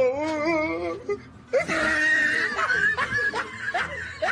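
A person laughing: a wavering laugh in the first second, then after a short pause a breathier, higher-pitched laugh.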